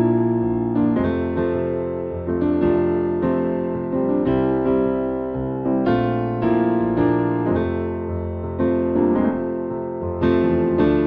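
Background music: gentle electric piano playing sustained chords, a new chord struck about every second and left to ring down.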